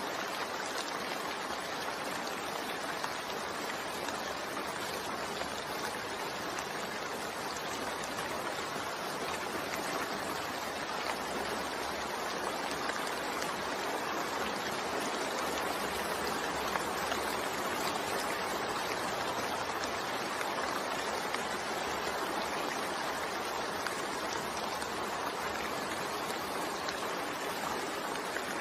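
Steady rain falling, an even wash of rainfall sound with no distinct drops standing out.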